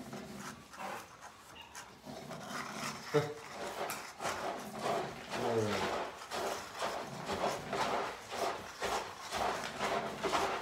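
Several cats eating wet food from cans: a dense, irregular patter of chewing, lapping and smacking with small clicks, and a couple of brief pitched vocal sounds about three and five and a half seconds in.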